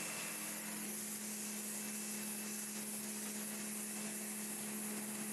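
A pressure washer running steadily, its pump motor giving a constant hum under the hiss of the water jet spraying onto stone paving slabs.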